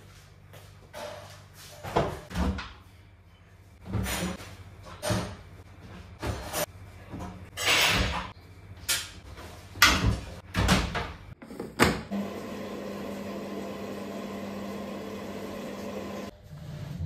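Laundry being loaded into a Beko front-loading washing machine: a run of knocks and thumps, a loud click as the door shuts about twelve seconds in, then the machine running with a steady hum and an even hiss of water.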